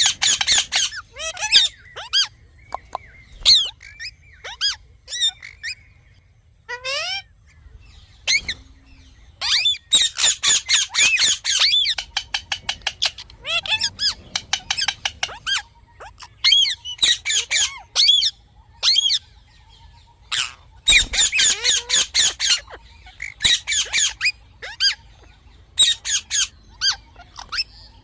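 Parrot squawking in rapid bursts of harsh, high-pitched calls, broken by short pauses, with the densest runs about ten seconds in and again past twenty seconds.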